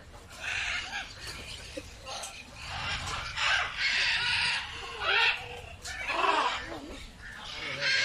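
Parrots squawking: about eight harsh, raspy calls, each half a second to a second long, spaced irregularly.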